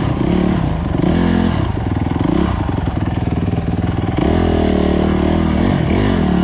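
Dirt bike engine running under a rider's throttle, its note rising and falling as the revs change, held higher from about four seconds in before dipping near the end.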